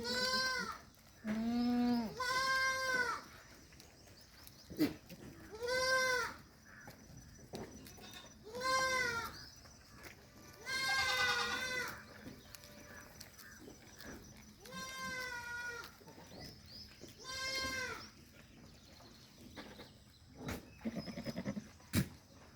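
Goats bleating, about eight separate calls a few seconds apart at different pitches, one of them low and one wavering near the middle.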